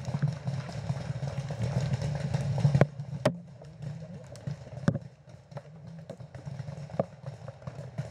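Paintball markers firing: sharp single pops, scattered every second or two, over a low steady hum that stops about three seconds in.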